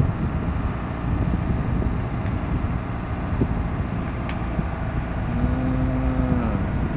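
Excavator's diesel engine running steadily with a dense low rumble. Near the end a held, pitched hum sounds for about a second and a half and then falls away.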